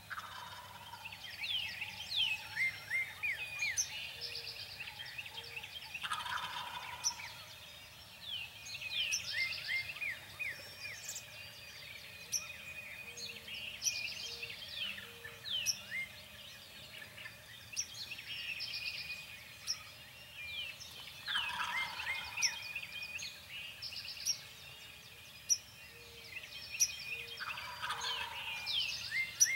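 Wild turkey gobbling four times, several seconds apart, each gobble a quick rattle falling in pitch. Songbirds chirp continuously around it.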